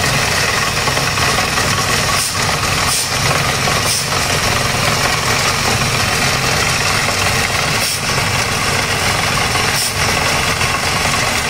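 Borewell drilling rig running steadily and loudly while drilling a water well: a continuous engine and machinery drone.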